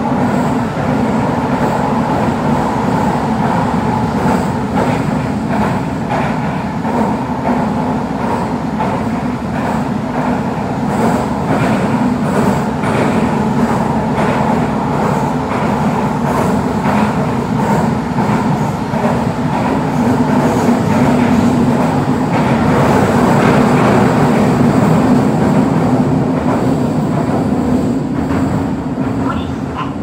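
Running noise inside a Toei Oedo Line 12-000 series linear-motor subway car travelling through a tunnel: a steady roar of wheels on rail. It grows a little louder about two-thirds of the way through and eases near the end as the train slows into a station.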